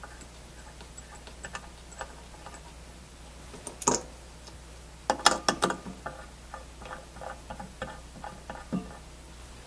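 Small metal clicks and taps of brass piston assemblies and retaining nuts being handled and screwed by hand into an aluminium refrigerant manifold body. There is a sharp clink about four seconds in, a burst of louder clicks around five seconds, then a run of light quick ticks.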